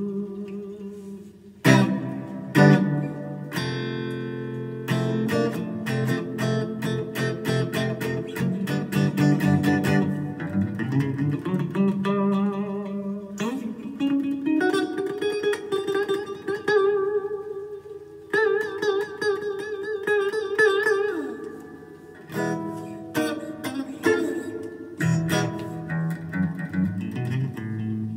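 Electric guitar, a Fender Stratocaster through a Fender amp, playing without vocals. It opens with quickly strummed chords and moves about halfway through to held single-note lead lines with wavering, bent notes.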